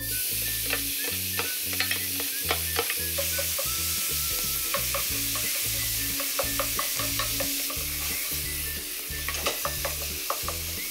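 Freshly added raw mixed ground meat sizzling in hot olive oil in a deep frying pan, with a turner spatula scraping and tapping the pan as it stirs and breaks up the meat. Background music with a low bass line runs underneath.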